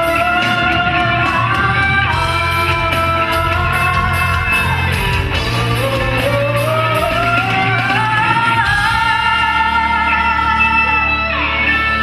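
Live rock band playing with a female singer: long held sung notes, one sliding slowly up in pitch in the middle, over electric guitar, bass, keyboards and drums with regular cymbal hits.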